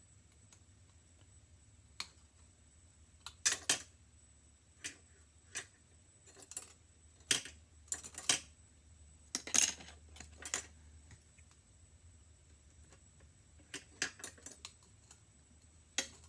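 Small metal hand tools at work: irregular clicks and clinks of hemostats and split-ring pliers against a split ring and fishhook as a hook is fitted onto a lure. Some come in quick clusters, others seconds apart.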